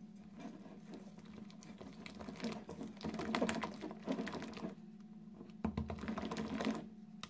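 A hand squishing and mixing soft, sticky cookie batter in a glass bowl: a run of small, irregular wet clicks and squelches. It is busiest from about two and a half seconds in, with a short pause just before the last stretch.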